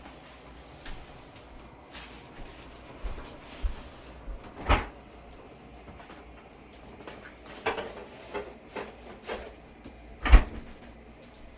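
Scattered knocks and thumps of kitchen handling: things being shut, moved and set down, about eight in all, with a loud one near the middle and the loudest near the end.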